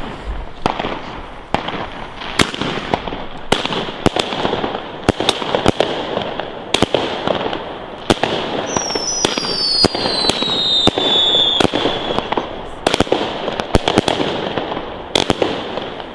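Nordlicht 'Die Blutgrätsche' firework battery firing: an irregular string of sharp shots, about two a second, over a steady hiss. Around nine to twelve seconds in, a whistling tone falls in pitch.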